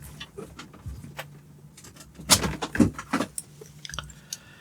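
Scattered clicks and knocks of plastic connectors and parts being handled as the Xbox power supply is unplugged, a few louder clacks near the middle, over a faint steady low hum.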